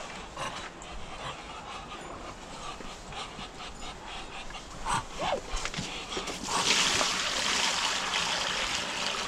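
Water poured from a bucket into a pan, a steady splashing pour that starts about two-thirds of the way in. Before it there are faint short calls from Muscovy ducks and small rustles.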